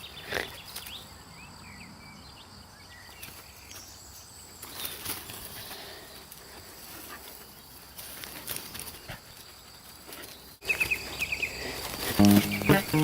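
Quiet outdoor ambience with a few short knocks and faint high chirps; music with steady held notes comes in near the end.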